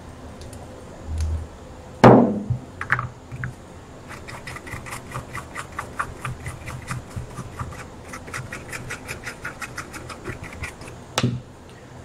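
A small brush scrubbing a circuit board in fast back-and-forth strokes, about six a second, cleaning up after soldering. A loud knock about two seconds in and a sharp click near the end.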